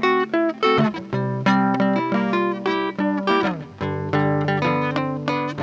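Replica Gibson J160E acoustic-electric guitar with flatwound strings, heard through its neck pickup and a Vox Tonelab ST on a clean setting, playing a quick picked single-note riff high on the neck. A note slides down about three and a half seconds in, and a chord is left ringing near the end.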